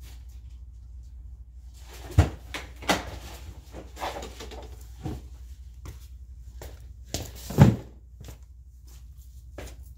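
Hard objects clunking and knocking as they are shifted and rummaged through, a series of irregular thumps with the loudest about three quarters of the way in, over a steady low hum.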